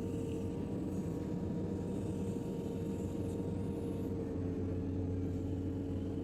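JCB 3DX backhoe loader's diesel engine running steadily, with a constant mid-pitched tone held over a low hum.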